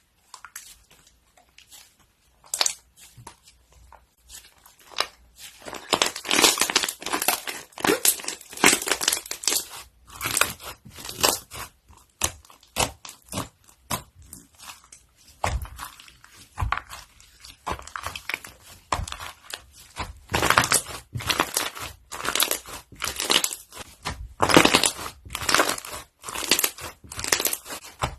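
Crunchy slime being squeezed and kneaded by hand, giving rapid, irregular crackling and popping. It is sparse and quiet for the first few seconds, then dense from about five seconds in.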